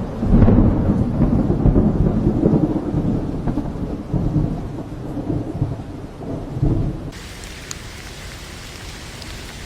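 A long, rumbling roll of thunder over rain, swelling and fading for about seven seconds. It then gives way abruptly to a steady hiss of rain with a few faint drip ticks.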